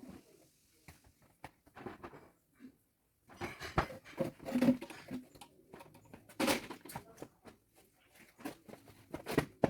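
Irregular knocks, taps and rustles of oranges being handled and sorted by hand, with a short silent pause about three seconds in.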